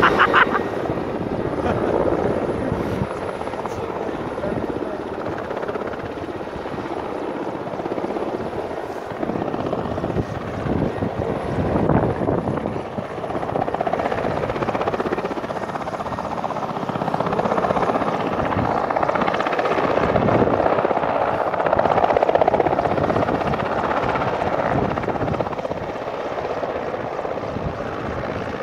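Large transport helicopter running with its rotor turning, a continuous rotor and engine noise that swells and fades.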